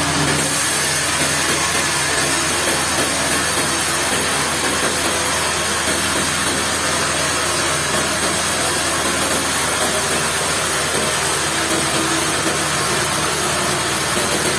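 Sawmill machinery running steadily: a motor's hum under a loud, even hiss, which grows brighter just after the start.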